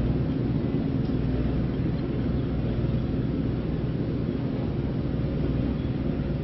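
A steady low rumble that does not change, with no distinct knocks or calls standing out.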